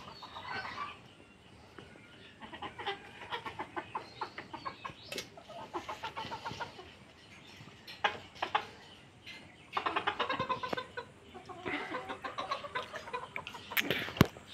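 Hens clucking in several bursts of quick, repeated calls, with a few sharp clicks in between.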